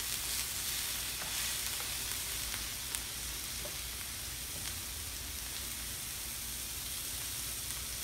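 Skirt steak and sliced mini peppers sizzling steadily on the hot stainless steel plate of an electric Cook-N-Dine teppanyaki grill, with a few light clicks of metal spatulas against the plate in the first three seconds.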